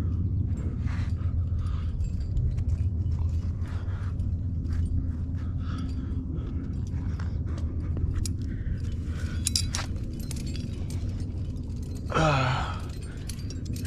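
Climbing hardware clicking and clinking on a harness over a steady low rumble, with a brighter cluster of clinks about two-thirds of the way in. Near the end comes a short loud call that falls in pitch.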